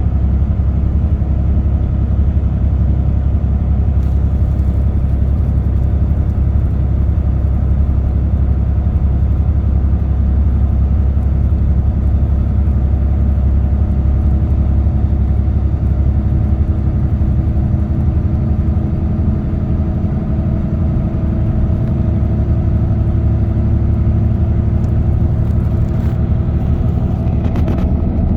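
Car cruising on an expressway: steady low road and tyre rumble with engine drone, and a faint hum that rises slightly in pitch during the second half.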